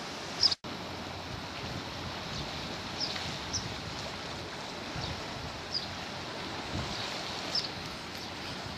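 Steady outdoor noise of wind on the microphone and the sea below, with short high chirps every second or so. About half a second in there is a brief loud click followed by a short cut-out.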